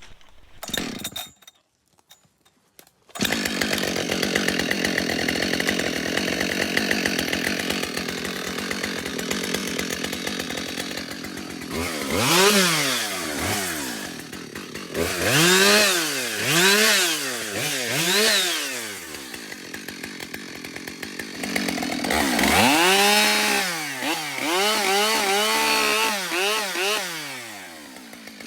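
Husqvarna 572XP two-stroke chainsaw coming in suddenly about three seconds in and running steadily. From about halfway its engine speed rises and falls again and again, several quick revs, and it holds high near the end.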